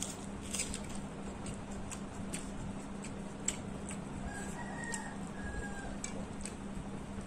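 A rooster crowing once, faintly, in a call of about a second and a half midway through. Underneath are short wet clicks of chewing and lip-smacking from someone eating rice and curry by hand, over a steady low hum.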